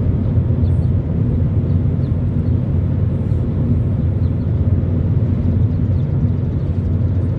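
Steady low rumble of a car driving on the road, engine and tyre noise holding an even level.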